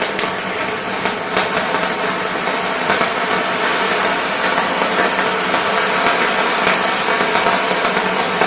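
Crackling flower pot (anar) fountain firework burning: a steady rushing hiss of sparks full of small crackles, with a few sharper pops.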